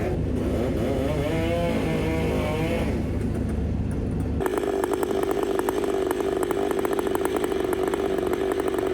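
A heavy machine's engine revving up and down, then, from about four and a half seconds in, a chainsaw running at full throttle and cutting wood, steady and high-pitched.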